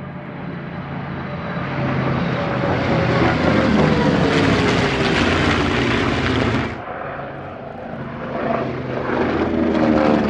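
A formation of piston-engined propeller warbirds flying past overhead, the engines running together with a falling pitch as they pass. About two-thirds in the sound cuts off sharply, and a single radial-engined aircraft swells in, passing overhead with a falling pitch.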